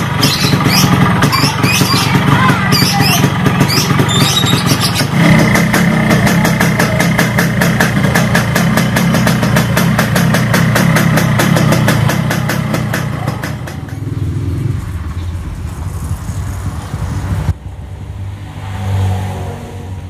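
Yamaha RX-King two-stroke single-cylinder motorcycle engine running loudly through its exhaust with a fast, even firing rattle, picking up about five seconds in, then dropping back and running quieter in the last several seconds.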